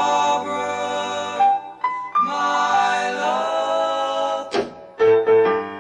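Music: a doo-wop group's song intro, the group's harmonized voices holding long chords twice, followed by short separate notes near the end.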